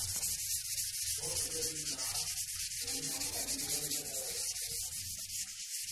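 Blackboard duster rubbing chalk off a blackboard in quick repeated strokes, a continuous scratchy hiss as the board is erased.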